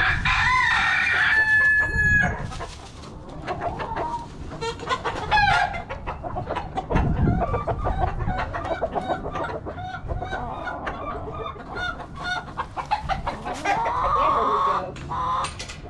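Backyard chickens: hens clucking throughout, and a rooster crowing at the start, its long final note ending about two seconds in.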